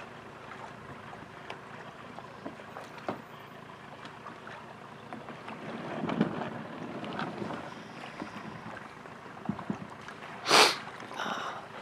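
Outdoor ambience with light wind on the microphone and scattered small clicks. A short, sharp, loud noise comes about ten and a half seconds in, followed by a softer one.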